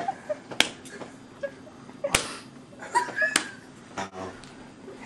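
A few sharp slaps from a toddler's hand on bare skin, the loudest about two seconds in, with short high vocal sounds between them.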